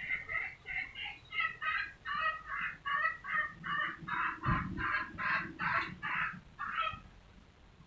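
A chicken clucking in a quick run of short calls, about three to four a second, which stops about seven seconds in.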